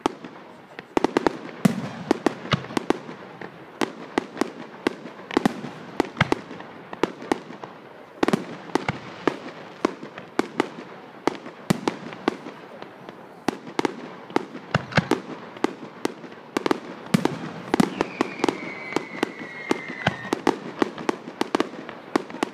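Fireworks display: a steady barrage of bangs and cracks from rising comets and bursting aerial shells, with a brief falling whistle about eighteen seconds in.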